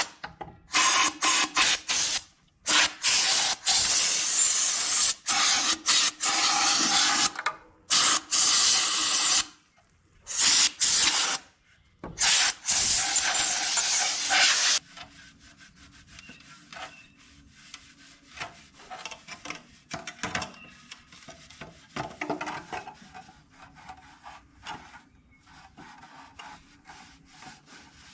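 Loud bursts of hissing spray, starting and stopping repeatedly for about fifteen seconds, cleaning dirt out of a Ford 545A backhoe's air filter housing; then quieter rubbing and scraping.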